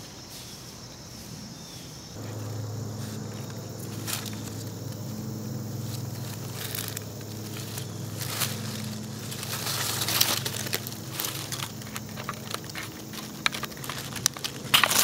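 Rustling in dry leaves and knocks of a camera being handled as it lies on the forest floor, growing busier near the end. Under them a steady low hum starts about two seconds in and holds.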